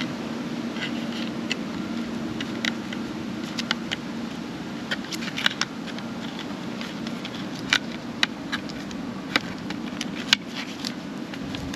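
Scattered sharp clicks, taps and crinkles of cardboard and paper packaging being handled during an unboxing, over a steady low hum.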